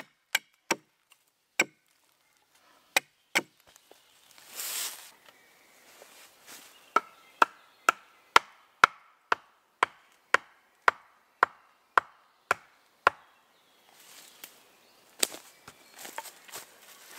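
Hatchet chopping a point onto a wooden stake against a log: sharp, separate chops. From about seven seconds in comes a run of about a dozen evenly spaced wooden knocks, about two a second, followed near the end by footsteps in leaf litter.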